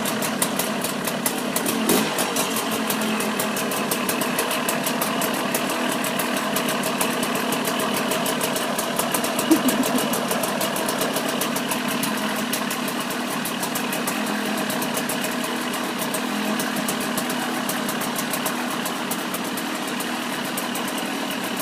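Freshly rebuilt 2002 KTM 200's two-stroke single-cylinder engine idling steadily, with a brief sharp sound about nine and a half seconds in.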